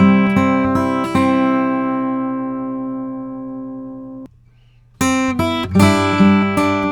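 Acoustic guitar strumming chords, then one chord left to ring and fade until it is cut off about four seconds in. After a short silence the same guitar part starts again. The first take is recorded through a Rupert Neve Designs Shelford Channel mic preamp and the second through a BAE 1073DMP.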